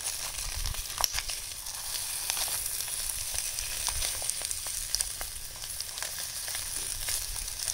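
Vegetable stir-fry sizzling in an aluminium tray over a charcoal shichirin: a steady high sizzle with scattered small crackles.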